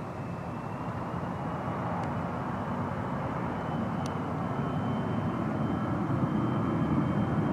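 Bombardier CRJ regional jet on its takeoff roll, its two rear-mounted General Electric CF34 turbofans at takeoff power. A steady high whine rides over a rushing engine noise that grows steadily louder as the jet comes closer.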